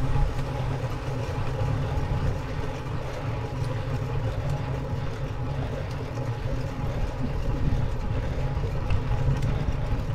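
Steady low rumble of a bicycle climbing slowly on rough tarmac, picked up by a camera mounted on the bike: road and tyre vibration.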